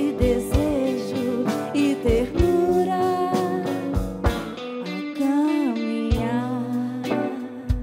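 A band playing a song: guitar and a gliding melody line over sustained chords, with drum hits about every two seconds.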